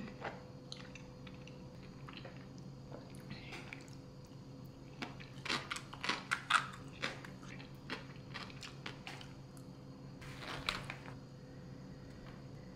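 Scattered soft clicks, taps and rustles of small objects being handled, clustered about five to seven seconds in and again near eleven seconds, over a faint steady hum.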